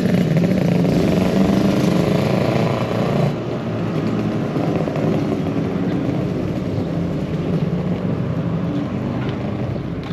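Motorcycle engine running steadily, louder at first and dropping in level about three seconds in.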